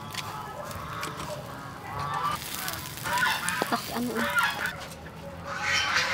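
Domestic fowl honking: a string of short nasal calls, busier and louder near the end.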